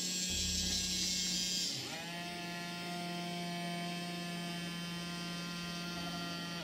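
Small DC gear motors of an OWI Robotic Arm Edge kit whining through their plastic gearboxes as the arm runs its rewind. One motor runs for the first two seconds or so, then another takes over with a different, steadier whine and stops near the end.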